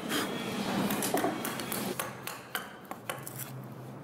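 Hammer tapping a steel chisel to trim wooden battens: a run of short, sharp knocks, most of them about one and a half to three seconds in, along with the clatter of wood being handled.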